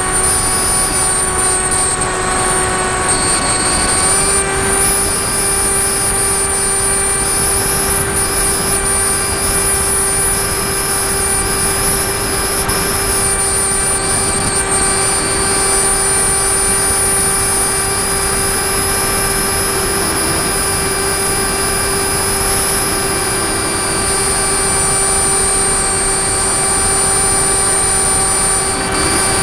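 Model airplane's motor and propeller running steadily in flight, heard from the plane's onboard camera over a rush of air noise. The pitch steps up slightly about four seconds in, then holds steady.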